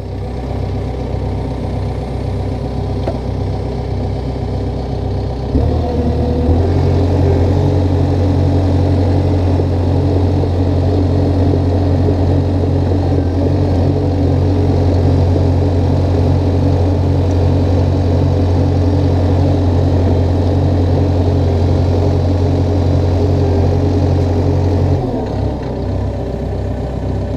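Small crawler dozer's diesel engine running, heard from the operator's seat. About six seconds in it revs up to a higher, steady working speed and holds it, dropping back to a lower speed near the end.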